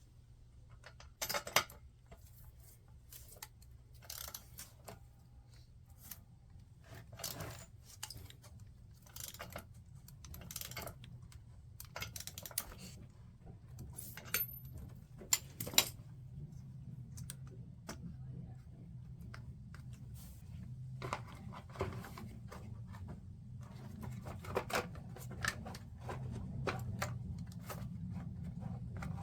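Irregular clicks and clatter of small plastic and metal parts being handled and fitted as a chainsaw is put back together, the sharpest clacks about a second and a half in and about sixteen seconds in. A low steady hum underneath grows a little louder in the second half.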